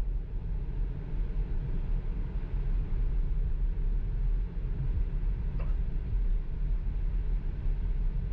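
Steady low tyre and road rumble inside a Tesla's cabin while driving, with no engine sound.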